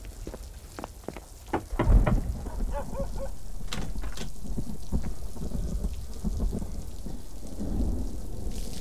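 Rain falling, with a low rumble of thunder about two seconds in, then a steady wash of rain.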